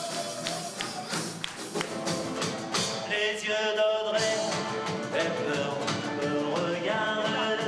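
Music: a song with a singing voice over a steady percussive beat. About four seconds in the sound changes to a band with acoustic guitars and drums.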